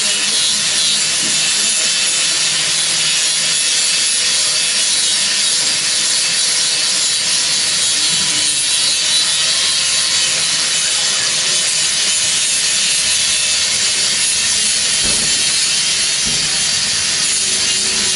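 Electric angle grinder running with its disc pressed against a metal bar, a steady high-pitched grinding noise with a faint motor whine under it.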